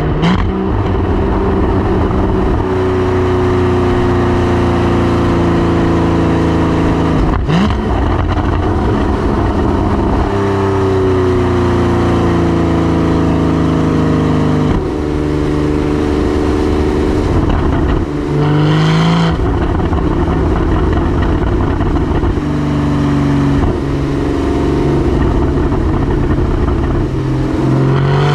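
Porsche 981 Cayman GT4's 3.8-litre flat-six engine running under load, its pitch sliding and jumping several times as it changes revs and gears, with a short rising throttle blip about two-thirds of the way in.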